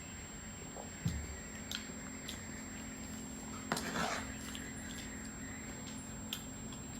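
Eating sounds: a spoon clicking a few times against a plate and a wet, sticky chewing and lip-smacking sound from a mouthful of peanut-sauced gado-gado, over a faint steady hum.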